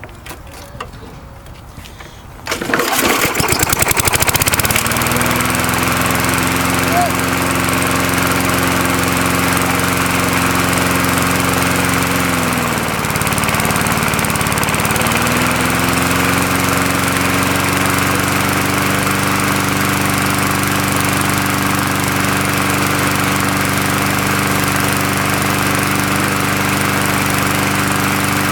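1992 MTD lawn mower engine starting about two and a half seconds in after a few knocks, then running held at full throttle at a steady pitch. About halfway through, its speed sags briefly and climbs back up.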